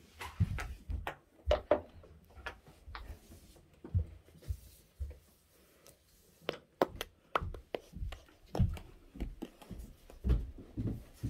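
Footsteps on a wooden floor and then on stairs: an uneven string of soft thumps and knocks, with the phone being jostled in the hand.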